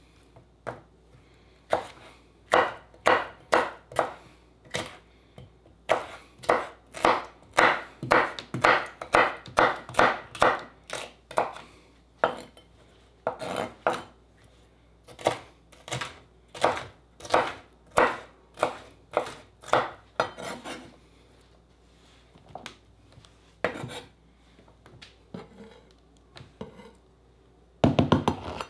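Knife chopping food on a cutting board: a long run of short, even strokes, about two a second, broken by short pauses, with a heavier thump near the end.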